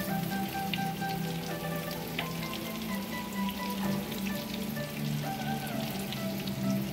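Breaded steak fritters frying in a pan of hot oil: a steady sizzle with many small crackles and pops.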